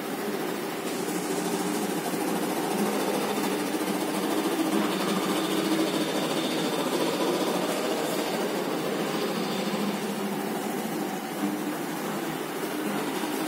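Unilami wide-format roll laminator running steadily, its motor-driven rollers pulling a printed vinyl sheet through.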